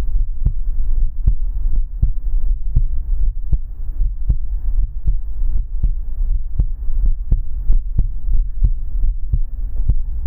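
Heartbeat sounds: a steady, even rhythm of soft thuds over a constant low rumble.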